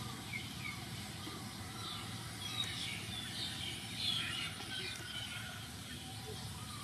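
Faint bird chirps, short and scattered, over a steady low outdoor background.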